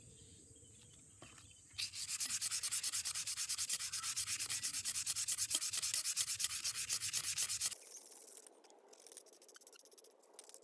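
P150 wet/dry sandpaper rubbed by hand along a wet metal car-jack arm: quick back-and-forth sanding strokes, about six or seven a second, starting about two seconds in and stopping after about six seconds. Faint light scrapes and clicks follow.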